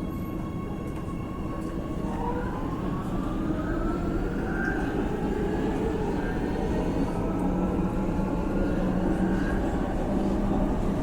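City tram slowing on its rails: the rumble of wheels on track grows steadily louder, and about two seconds in a metallic brake squeal sets in as several high thin tones drifting slowly upward.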